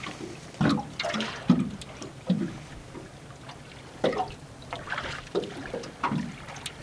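Water splashing and sloshing against the hull of a small aluminium boat as a landing net is worked at the surface, with irregular short splashes and light knocks.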